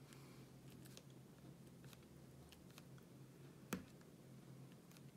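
Faint ticks of a diamond-painting drill pen pressing resin drills onto the canvas, with one sharper click a little under four seconds in.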